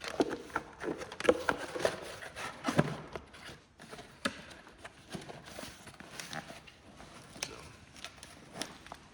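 Irregular knocks and clicks, closely bunched for the first three seconds and then scattered.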